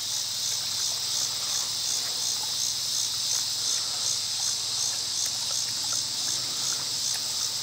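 Outdoor insect chorus: a steady high-pitched buzzing that pulses evenly about four times a second. Faint small lapping and splashing sounds come from a dog drinking from a water-filled plastic pool.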